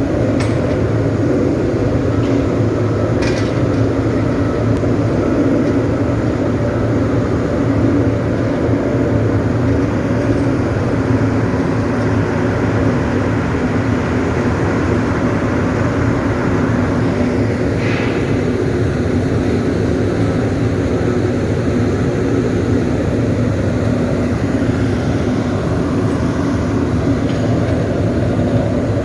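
Aluminium melting furnace running with a steady, loud, low rumbling noise that does not change. There is a faint click about three seconds in and another about eighteen seconds in.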